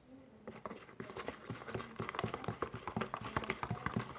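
A utensil stirring a liquid mixture in a bowl, clicking and tapping against the bowl several times a second from about half a second in.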